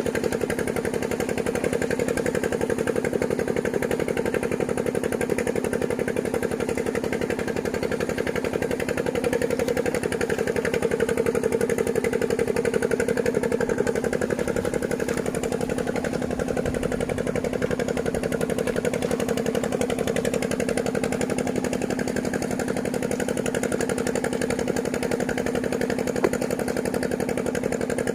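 An engine running steadily at an even speed with a rapid pulsing chug.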